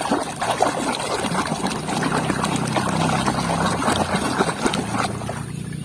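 Water running and splashing over a muddy plastic toy as it is washed clean, with small clatters of the toy being handled. The sound eases off near the end.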